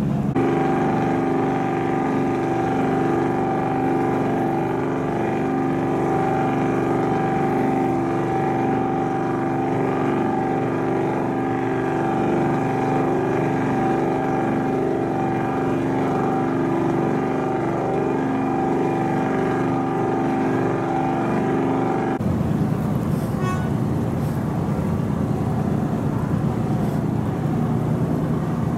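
A ferry's engine drones steadily, with a stack of even tones over water and wind noise. About three-quarters of the way through, the sound switches suddenly to a rougher, lower drone.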